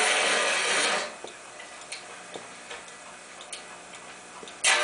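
Relay-controlled model train layout: the train's running noise cuts off about a second in, a few light, irregular clicks follow, and near the end a loud buzzing hum starts suddenly as power comes back on.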